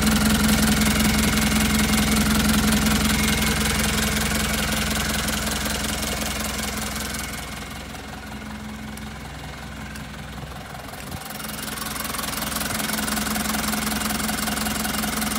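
Mitsubishi Canter's 4D35 four-cylinder diesel engine idling steadily. It grows fainter for a few seconds past the middle, then louder again.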